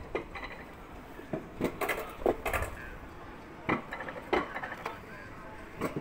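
Alpine coaster car running along its steel rails with a low rumble, clattering and knocking at irregular moments as it rides the track.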